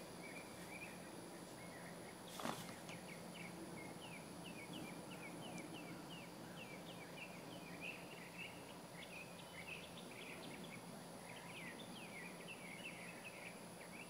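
Faint birdsong: many short, quick chirps repeating throughout. About two and a half seconds in comes a single brief snap as an umbrella is popped open, the startle stimulus of a puppy temperament test.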